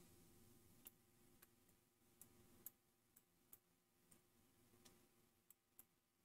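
Near silence with faint, scattered clicks of a computer mouse, about eight in all, the clearest about two and a half seconds in.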